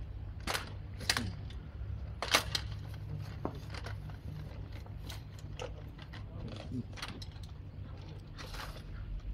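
Scattered metallic clicks and clinks of rope-rescue gear being handled, carabiners and the legs and fittings of a rescue tripod, over a steady low rumble.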